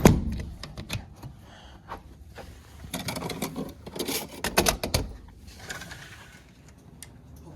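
A door being closed: a series of clicks, knocks and rattles in bursts, the loudest about three and four and a half seconds in.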